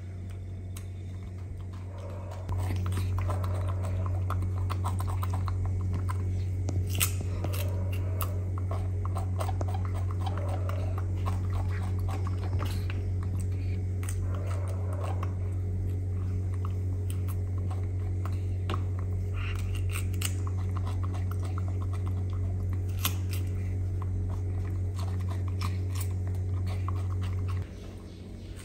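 Small monkey chewing and biting cucumber, with many small wet crunches and clicks. Under it a loud steady low hum starts abruptly a couple of seconds in and cuts off near the end.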